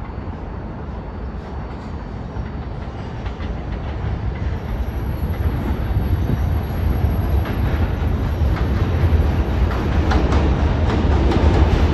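New York City subway train approaching and growing steadily louder: a deep rumble of wheels on rail, with track clicks building toward the end and a faint high whine from about four seconds in.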